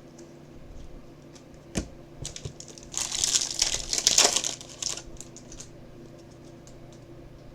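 A knock, then about two seconds of crinkling and rustling as a trading card pack is opened and its cards handled.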